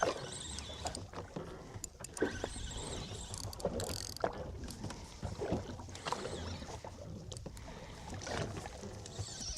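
Water slapping against the hull of a small fishing boat at sea, with a steady low rumble and irregular knocks.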